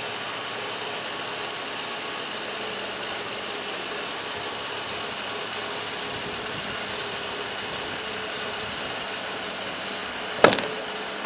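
Narrowboat's diesel engine running steadily while the boat is under way, a constant drone with a faint held hum. One sharp knock cuts in near the end.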